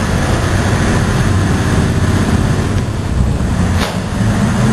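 Engines of a landing craft running in a ship's floodable well deck: a loud, steady low rumble, with one sharp click near the end.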